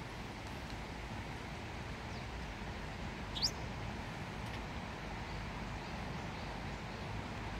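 A Japanese wagtail gives one short, sharp call that sweeps steeply up in pitch about three and a half seconds in, with a couple of much fainter calls around it, over the steady rush of a shallow river.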